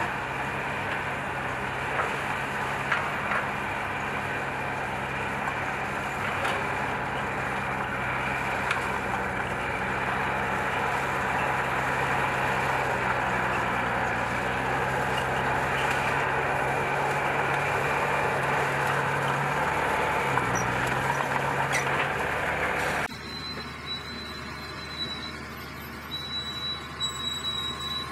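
Steady diesel engine drone and machinery noise from a New Holland combine harvester working beside a tractor, with the combine unloading grain through its auger. The engine pitch dips briefly about twenty seconds in. At about 23 seconds the sound cuts abruptly to a quieter drone with a thin high whine.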